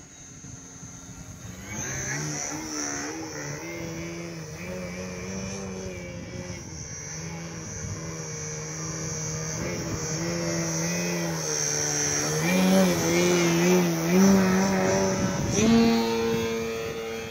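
Radio-controlled aerobatic model airplane flying past: its motor and propeller note wavers up and down with the throttle and grows louder as it comes close. About three-quarters of the way through it shifts to a higher, steady pitch.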